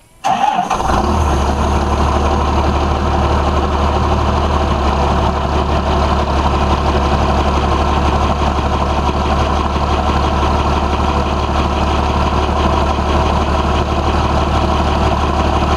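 1992 Dodge Ram's 12-valve Cummins 5.9-litre inline-six turbo diesel cold-starting: it comes in suddenly about a quarter second in and settles almost at once into a steady idle. A cold start at about 35°F after the truck has sat for over three weeks.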